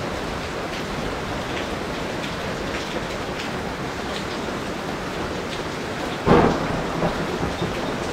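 Heavy tropical rain falling steadily, with single drops striking close by now and then. About six seconds in, a sudden clap of thunder that rolls off over the next second or so.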